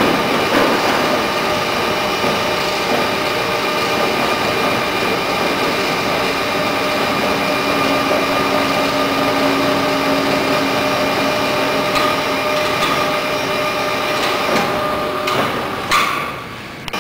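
Overhead crane hoists running steadily as they roll a yacht hull over in its slings, a loud mechanical drone with several steady tones. A further tone joins for a few seconds midway. A short knock comes about a second before the end, then the sound drops away suddenly.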